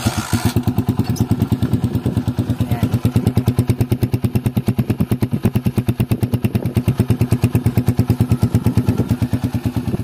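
Honda TMX 155's single-cylinder four-stroke engine idling steadily through an aftermarket exhaust with its silencer insert fitted. The exhaust gives quick, even pulses at a constant speed.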